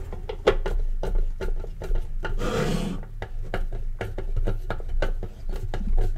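Screwdriver driving a stiff screw into the case of a hot air desoldering station: a run of irregular clicks and creaks, with a short scraping rasp about two and a half seconds in, over a low steady hum.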